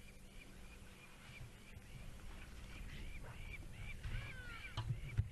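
Birds calling at the water's edge: a run of short, repeated high calls, several a second, growing louder toward the end, over a low rumble.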